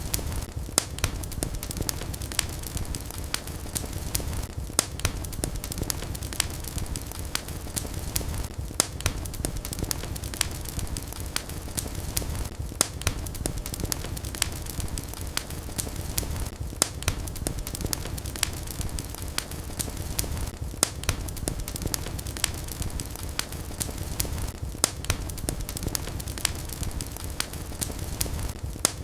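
Wood fire crackling in a fireplace: frequent sharp, irregular pops and snaps over a steady low rumble of the flames.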